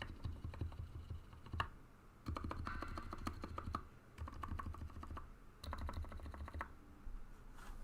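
Anne Pro 2 keyboard with lubed Cherry MX Silent Red switches, its modifier and stabilized keys such as the spacebar pressed over and over in quick runs with short pauses between them; the presses are soft, muted clacks. About one and a half seconds in comes a single sharper metal clank from construction work outside.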